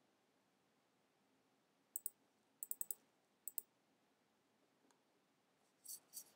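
Scattered clicks of a computer mouse and keyboard over near silence: a pair about two seconds in, a quick run of about four just after, a single click, then two more near the end.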